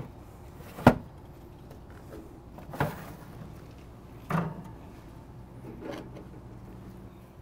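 A sharp clink about a second in, then three softer knocks and rustles a little under two seconds apart, as chunks of raw beef short rib are set on a smoker's wire cooking grate.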